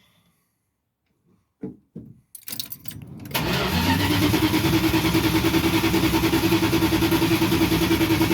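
Plymouth van's starter cranking the engine: after a few short knocks, the starter engages about three seconds in and turns the engine over steadily with an even, fast pulse and a steady whine, without the engine catching. The van has sat for about two months and won't start.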